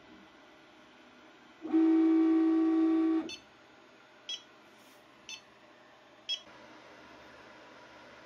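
Mingda Magician X 3D printer's stepper motors driving the print head across in one steady, loud whine of about a second and a half that cuts off sharply. Three short, high ticks follow, about a second apart.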